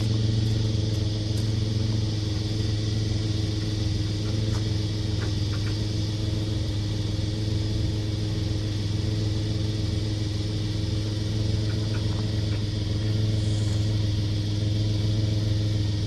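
Four-wheel-drive vehicle's engine idling steadily, with a few faint clinks.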